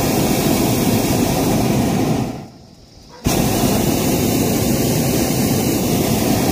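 Hot air balloon's propane burner firing in two loud, steady blasts. The first cuts off about two seconds in, and after a short break the second starts abruptly and keeps going.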